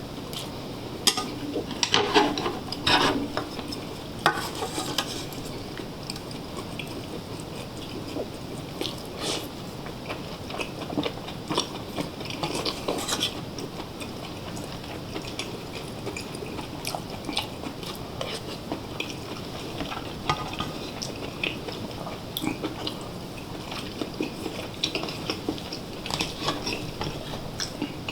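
Close-miked eating: chewing and bites mixed with utensils clicking against dishes, coming in scattered clusters of small sharp clicks.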